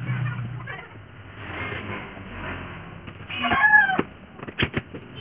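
A chicken calls once, a short falling cry about three and a half seconds in, over a constant rustle of plastic wrap being handled. A few sharp clicks follow near the end.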